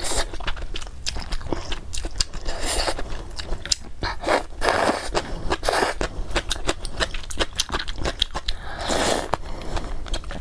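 Close-miked eating of snail noodles (luosifen): several slurps of rice noodles in broth between a steady run of wet chewing clicks and smacks.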